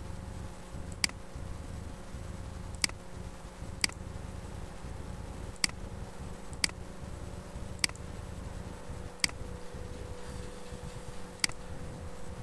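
Computer mouse button clicking: eight single sharp clicks at irregular intervals over a low steady hum.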